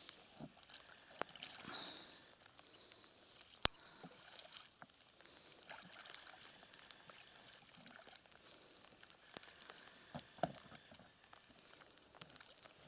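Faint sounds of a distant inflatable rowboat on calm water: quiet oar strokes and water movement, broken by a few sharp clicks, the sharpest about three and a half seconds in.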